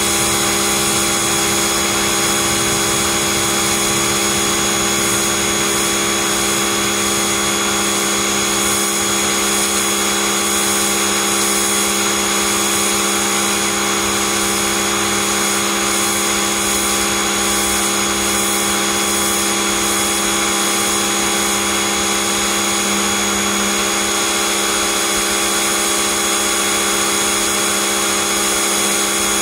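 Pressure washer running steadily, a constant motor hum under the hiss of the spray jet hitting concrete.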